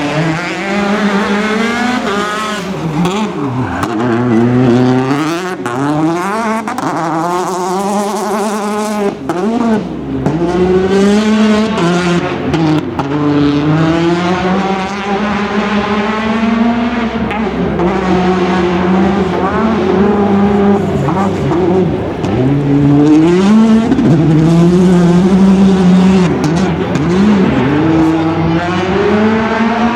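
Rally car engines revving hard, their pitch climbing and dropping repeatedly through gear changes and lifts as the cars pass in turn, with brief tire squeal.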